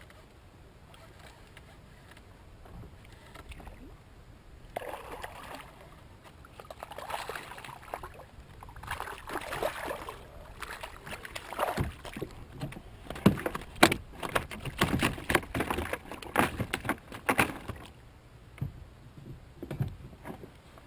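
Hooked fish thrashing and splashing at the water's surface beside a kayak: irregular bursts of splashing that begin about five seconds in, turn sharpest and loudest near the middle, and die away a few seconds before the end.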